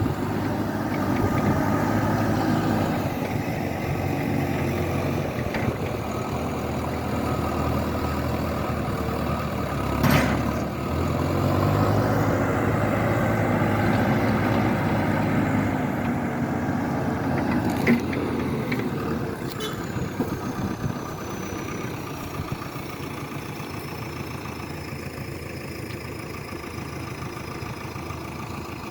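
An engine running steadily, with its pitch shifting a little, and sharp knocks about ten seconds in and again near eighteen seconds.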